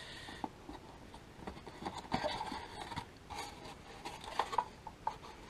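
Paper and cardboard packaging being handled: quiet rustling and scraping with a few soft knocks as a card insert is moved and items are lifted out of a cardboard box.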